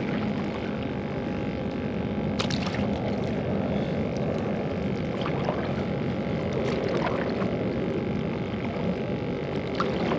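Paddle strokes from a stand-up paddleboard: the blade dipping and splashing in calm water, with a few sharp drips and knocks, over a steady rush of water and wind.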